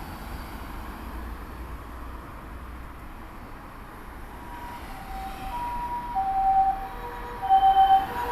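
Japanese ambulance harmonic siren sounding its two-tone hi-lo call on an emergency run, over low street rumble. The siren comes in faintly about halfway through, its two notes alternating roughly every half second, and grows louder toward the end.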